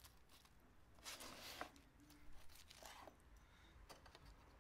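Faint sound of a knife slicing through a seared steak's charred crust on a wooden cutting board, in two short cutting strokes, one about a second in and one near three seconds.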